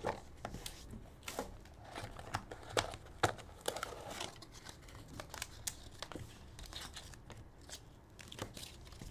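Hands opening a cardboard trading-card box and taking out cards in hard plastic holders: irregular rustling and crinkling with many light clicks and taps of cardboard and plastic.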